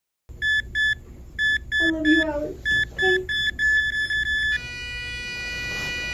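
Heart monitor beeping, the beeps coming quicker, then about four and a half seconds in a single unbroken tone: the flatline that signals the patient's heart has stopped.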